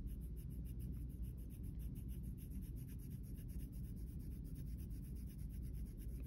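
Colored pencil shading on paper: rapid, even back-and-forth strokes scratching softly, pressed heavier to build a darker edge of the colored band.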